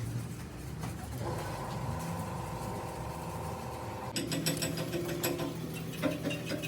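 Mechanical clicking and ratcheting over a steady hum, the clicks coming thick and fast in the second half.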